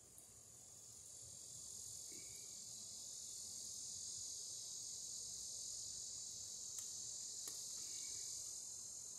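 Insects buzzing steadily in one continuous high drone that swells over the first couple of seconds and then holds. Two faint clicks come about seven seconds in as a screwdriver works the receptacle's terminal screw.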